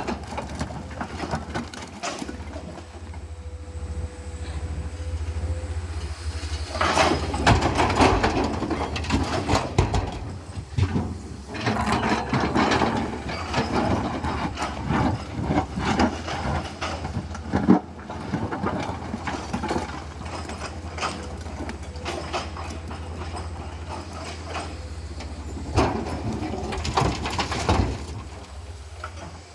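Komatsu PC210LC-10 hydraulic excavator's diesel engine running steadily while the machine loads crushed stone (blue metal). From about seven seconds in, rock rattles and scrapes irregularly against the steel bucket.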